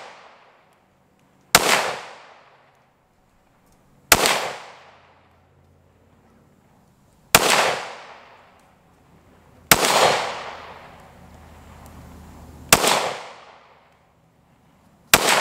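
A 5.7×28mm pistol fired six times in slow, aimed fire, one shot every two to three seconds, each crack trailing off in echo.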